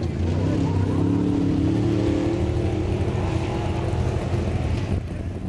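Engine of an off-road racing vehicle running loud and close. Its pitch climbs over the first couple of seconds, holds, and eases off near the end.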